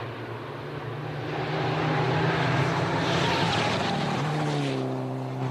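Rally car running hard on a special stage, its engine note holding steady under the rush of tyres and exhaust as it comes closer and passes. The sound swells to its loudest about two to three seconds in, then eases, and the engine note drops slightly about four seconds in.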